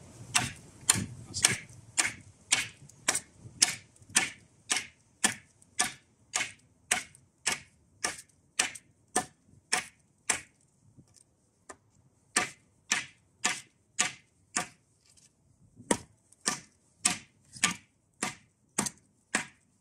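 Condor heavy-duty kukri machete chopping into a branch on a wooden chopping block: sharp blade-on-wood strikes about two a second. The strikes pause briefly about halfway through and again a few seconds later.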